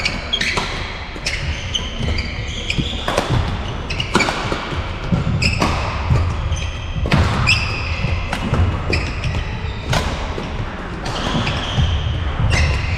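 Badminton rally in an echoing sports hall: rackets striking the shuttlecock in sharp cracks, with shoes squeaking and feet thudding on the court between shots.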